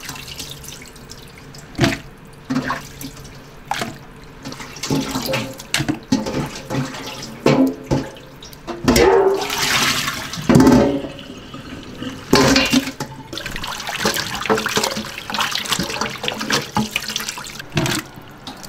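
Tap water running and splashing as chopped chicken pieces are washed by hand in a sink, with irregular knocks and clatter, and louder surges of water about halfway through.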